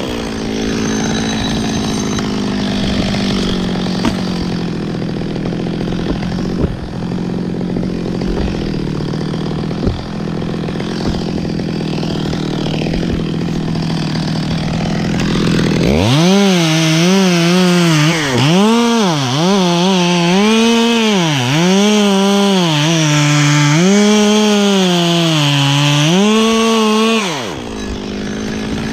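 Two-stroke chainsaw cutting pine, running at a steady pitch through a long cut. About halfway in it changes to short cuts, its pitch rising and falling about once a second, then it drops off near the end.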